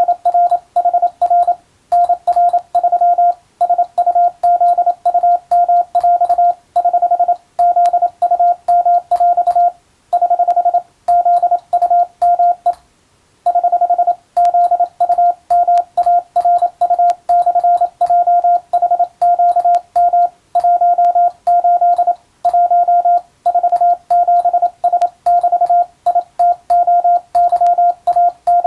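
Morse code (CW) sent by hand on a telegraph key: a single steady tone keyed in rapid dots and dashes, an English-language radiotelegram for receiving practice. Faint clicks come with the keying, and short pauses fall between groups, the longest about halfway through.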